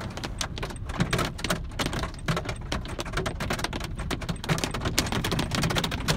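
Pea-sized hail pelting a car's windshield, heard from inside the cabin. It is an irregular patter of sharp ticks that grows denser toward the end.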